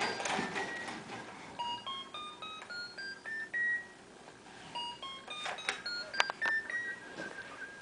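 A baby jumper's electronic tray toy playing a short tune of electronic beeps that step upward in pitch, twice over. A few clicks and knocks come between the two runs and during the second.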